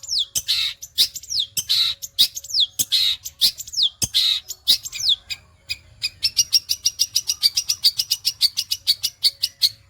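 Long-tailed shrike singing: a repeated harsh note, each followed by a falling whistle, about two phrases a second. About six seconds in it switches to a fast, even string of short high notes, about eight a second, the rapid 'sewing machine' delivery.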